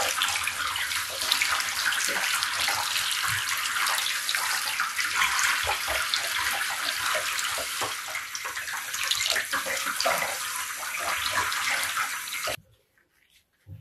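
Handheld shower head spraying water onto a wet cat's fur in a bathtub: a steady hiss of running water with small splashes, stopping abruptly near the end as the water is shut off.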